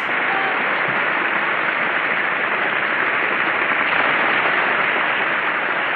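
An audience applauding: a dense, steady clatter of many hands clapping from an old film soundtrack, dull with no high end, easing off a little near the end.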